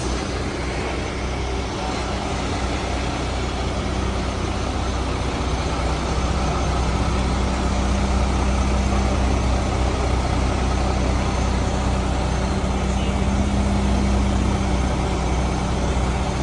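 Heavy diesel truck engine idling steadily, a low hum that grows a little louder from about six seconds in.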